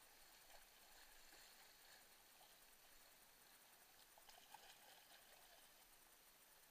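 Faint rushing of fast-flowing floodwater in a creek, with a few faint splashes about four seconds in, typical of kayak paddle strokes.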